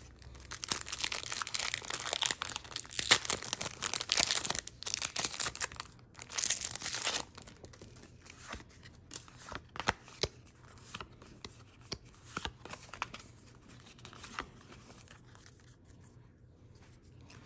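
A Pokémon card booster pack's wrapper being torn open and crinkled for about seven seconds. After that come quieter, scattered clicks and rustles as the cards are slid out and handled.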